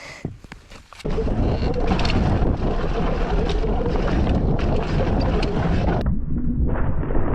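Wind rushing over the microphone of a mountain biker's camera on a fast downhill trail descent, a loud steady rush that comes in suddenly about a second in, with occasional sharp knocks from the bike over the rough trail.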